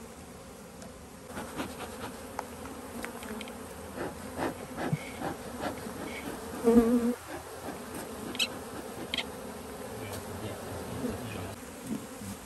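Honeybees from a colony opened for inspection, a mass of them buzzing steadily, with one louder buzz lasting about half a second a little past halfway. Scattered light knocks run through it.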